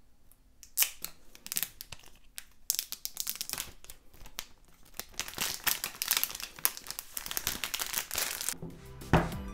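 Thin plastic shrink-wrap being torn and peeled off a smartphone box, crinkling and crackling, with a sharp snap about a second in. Background music comes back in near the end.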